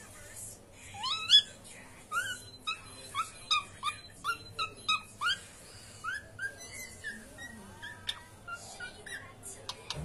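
Cockatiel whistling: one rising note, then a quick run of short rising whistled notes, about three a second, then softer scattered chirps.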